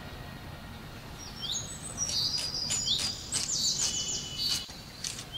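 Small birds chirping and singing: high, quick notes with short rising sweeps and a fast trill, starting about a second in, over a low steady background hiss.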